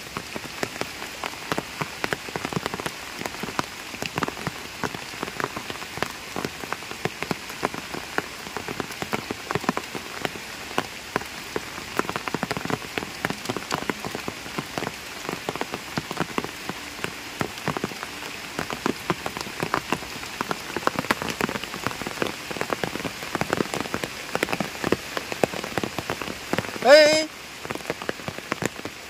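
Steady rain falling on a pond's surface, with many individual drops ticking throughout. Near the end comes one short, loud call that rises in pitch.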